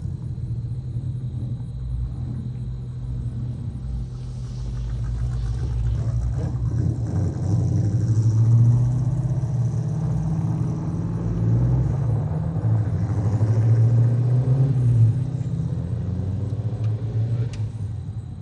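Two Fox-body Ford Mustangs, a turbocharged four-cylinder SVO and an LX, running at low speed as they drive off: a steady low engine rumble that swells about four seconds in and peaks twice around the middle.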